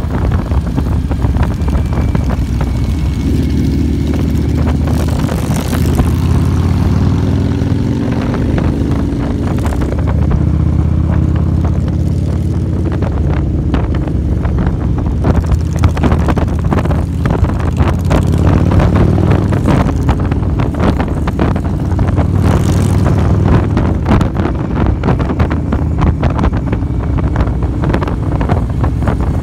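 Motorcycle engine running on the move, a steady low rumble, with wind buffeting the microphone in gusts.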